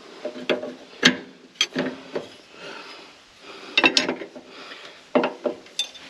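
Hand tools clinking and knocking against metal, an irregular run of sharp clanks with a brief ringing after the louder ones, as a hydraulic hose fitting is worked on.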